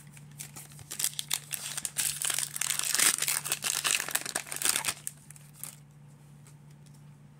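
A 2022 Donruss baseball card pack wrapper is torn open and crinkled by hand, a run of crackling and tearing that starts about a second in and dies down after about four seconds. A faint steady low hum runs underneath.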